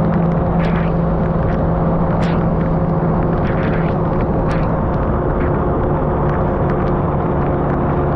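Car driving along a road: steady engine hum and road noise, with a few short, scattered ticks.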